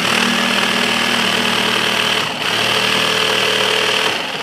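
Cordless jigsaw with its orbital (pendulum) action set to the highest setting, cutting through 3/4-inch marine plywood with a steady loud blade chatter that dips briefly twice. The orbital stroke makes a faster but aggressive cut.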